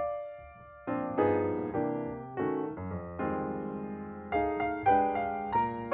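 Background piano music, gentle chords of struck notes that ring and fade, with a short pause in the first second before the playing resumes.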